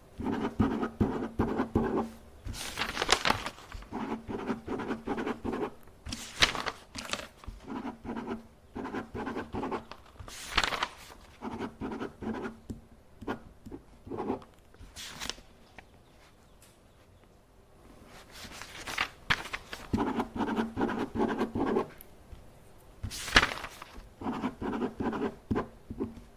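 Office desk sounds: runs of rapid clicking, each lasting a second or two, broken every few seconds by a short swish of paper being handled. There is a quieter pause about two-thirds of the way through.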